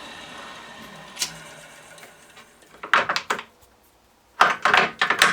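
Metal lathe running down and fading out, then clicks and knocks, and near the end a quick run of loud metallic clunks as the lathe's speed controls are shifted to full speed.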